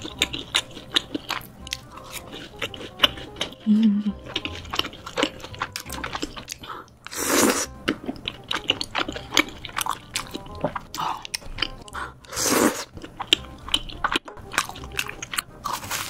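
Close-miked biting, crunching and chewing of fried cheese balls, with many sharp wet mouth clicks. Twice, about seven and a half and twelve and a half seconds in, comes a loud slurping sound.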